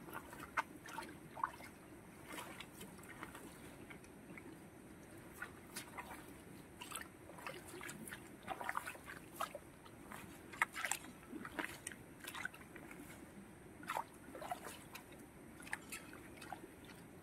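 Hands squelching and sloshing through wet mud and shallow water, as a series of short, irregular wet splats while groping in the mud for fish.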